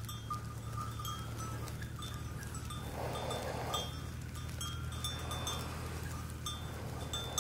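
Small livestock bells on a flock of goats and sheep clinking on and off as the animals move and graze, over a low steady hum.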